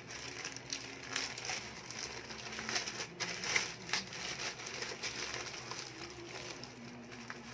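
Plastic courier pouch and bubble wrap crinkling and rustling in the hands as a parcel is opened and a bubble-wrapped item pulled out, with irregular crackles throughout.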